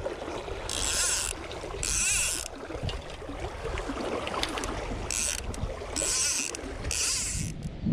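River water lapping and sloshing around a wading angler, with about five short hissing swishes of fly line as he fishes and casts the fly rod.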